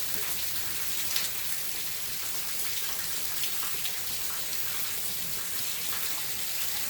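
Steady rain falling, an even hiss with many small drops pattering on surfaces and the odd louder drop.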